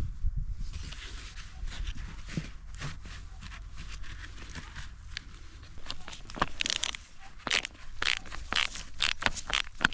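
Canvas layflat hose being worked onto a pipe end by hand, with rustling and scraping. From about six seconds in, a metal hose clamp is tightened with a screwdriver, giving a quick run of sharp clicks and scrapes.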